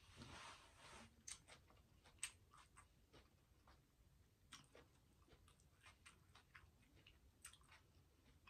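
Faint close-miked chewing with the mouth closed: soft, wet mouth clicks scattered irregularly, after a short soft hiss at the start.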